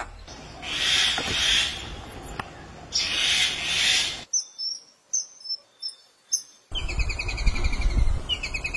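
Several bird calls cut one after another: a crested myna's harsh calls, then a hill myna's calls, and from about two-thirds through a white-throated kingfisher's rapid, repeated chattering trill.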